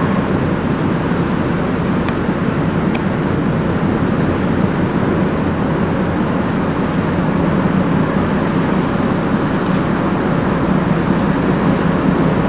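Steady low rumble of the passing bulk freighter Spruceglen's engine, growing a little louder over the last few seconds as the aft superstructure and stern come abreast.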